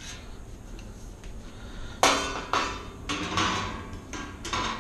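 A large sheet-metal electrical panel cover being set down and shifted on a tiled counter: several clanks about two seconds in, each ringing briefly, the first the loudest.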